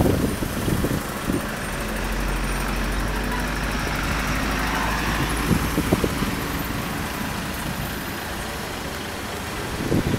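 Heavy truck's diesel engine running steadily with a low hum, amid road traffic noise.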